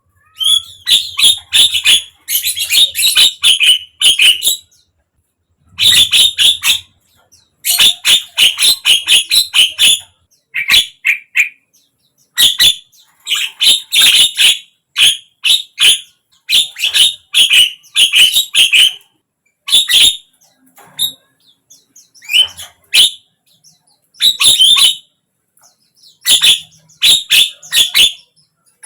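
Javan myna (jalak kebo) calling: bursts of rapid, clicking chatter, each a second or two long, repeated again and again with short gaps between them.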